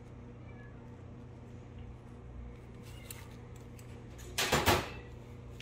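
Steady low electrical hum, with a few faint clicks and a loud hissing burst about half a second long near the end.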